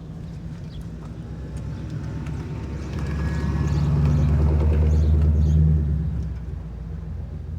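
Low engine rumble from a motor vehicle, swelling louder for a few seconds midway and then fading back down, as a vehicle passes close by.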